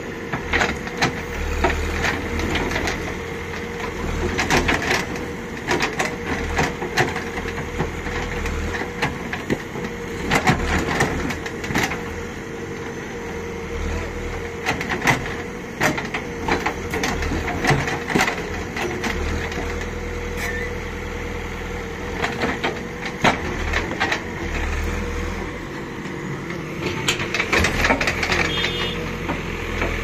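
JCB backhoe loader's diesel engine running steadily as the backhoe bucket digs muck out of a drain, with many sharp clanks and knocks from the bucket and arm.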